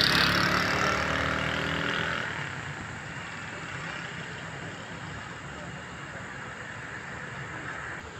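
Road traffic: a motor vehicle's engine runs loudly for about the first two seconds, then fades to a steady, quieter road hum.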